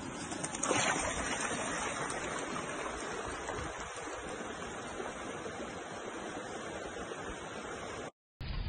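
Steady rushing of a shallow, rocky stream, with a brief louder rush about a second in. It cuts off suddenly near the end.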